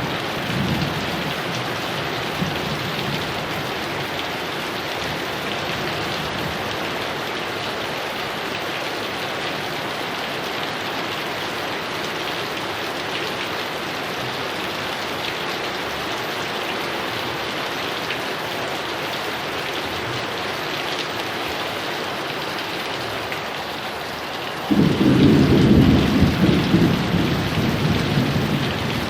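Heavy rain falling steadily. A loud rumble of thunder breaks in about 25 seconds in and runs for several seconds, and the tail of an earlier rumble fades out in the first second.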